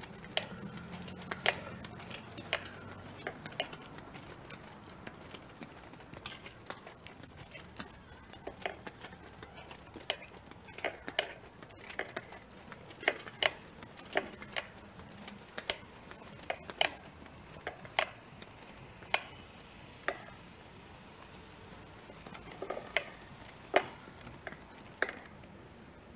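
Sharp, irregular clicks and taps, roughly one a second, from walking while holding a phone up: handling noise with steps. A faint low hum sits under the first few seconds.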